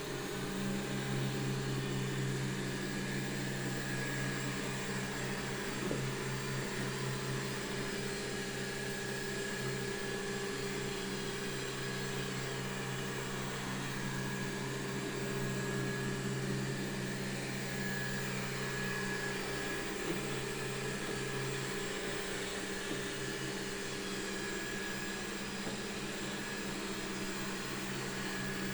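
Xiaomi Mi Robot Vacuum Mop 2 running a cleaning pass: a steady motor hum with a thin whine, coming up right at the start. There are two faint knocks, about six and twenty seconds in.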